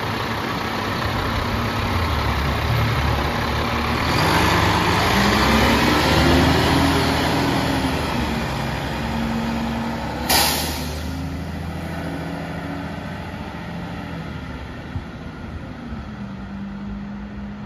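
Mack LEU rear-loader garbage truck pulling away: its engine rises in pitch as it accelerates and is loudest as it passes. A short, sharp air hiss comes about ten seconds in, then the engine fades as the truck drives off down the street.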